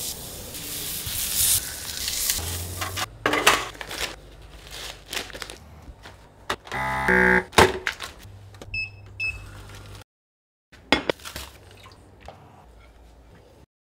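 Beef short ribs sizzling as they are laid on a hot griddle plate, followed by handling clicks and a countertop vacuum sealer: a short pitched pump hum about seven seconds in, then two short beeps.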